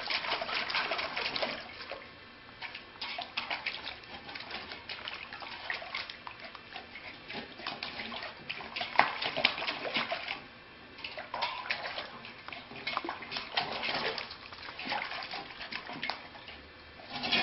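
A border collie puppy splashing in a steel water bowl, an irregular run of slaps and sloshes with a few short pauses.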